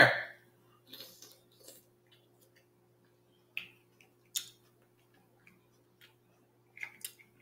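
A handful of scattered short clicks and taps as snow-crab and mussel shells are picked apart and handled on a plate, the two sharpest a little after the halfway mark.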